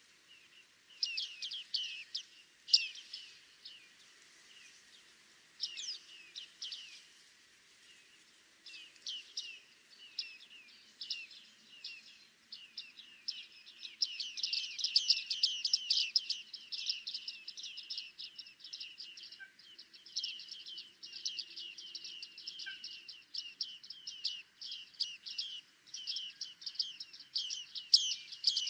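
Bearded tits calling: short, high call notes, in scattered clusters at first, then a near-continuous run of quick calls from about halfway.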